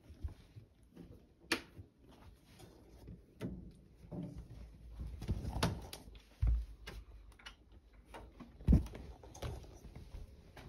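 Scattered light knocks and rustles with a few low thumps, the loudest nearly nine seconds in: handling and movement noise in a small room.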